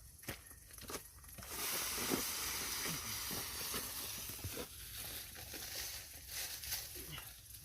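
Rustling and crackling of leaves and twigs, with scattered small snaps and a louder stretch of steady hiss from about a second and a half to four and a half seconds in.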